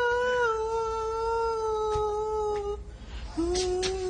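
A man singing unaccompanied, holding one long high note that wavers and sinks slightly for nearly three seconds. After a brief breath he holds a second, lower note.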